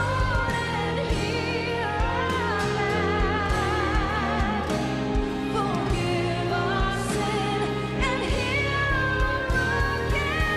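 A song with a singing voice over a band with bass and a steady beat.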